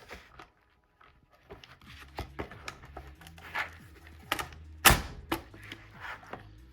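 A shotgun box magazine being handled and fitted to the gun: scattered clicks and knocks, the loudest a sharp knock about five seconds in.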